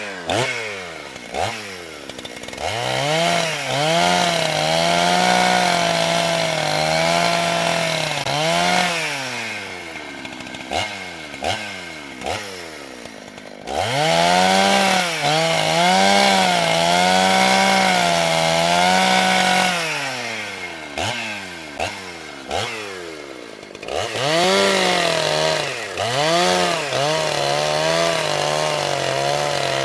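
Chainsaw engine revving up to high speed and holding there for several seconds, then dropping back to idle with a few short throttle blips. This happens three times.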